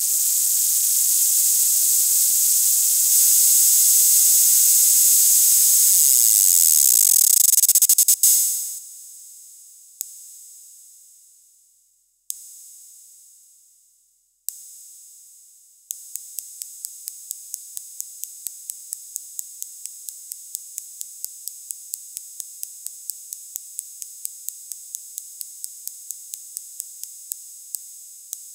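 Analog Roland/BOSS-style (DR-110-type) electronic cymbal circuit on a breadboard. A bright, dense hiss for about eight seconds cuts off and gives way to three single cymbal strikes, each dying away over about two seconds. It is then triggered steadily about four times a second, the strikes running into one continuous wash.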